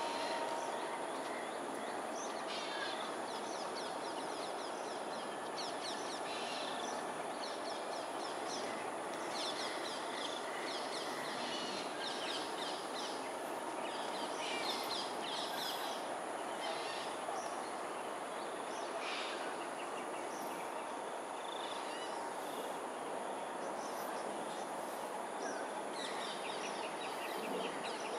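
Outdoor ambience: a steady high-pitched drone over a broad hiss, with short bursts of rapid, high-pitched bird chatter several times.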